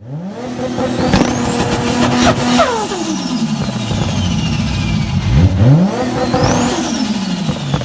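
Car engine revving: the pitch climbs, holds for about a second, then drops back, and revs up again about five seconds in, with a high whine rising and falling along with the revs.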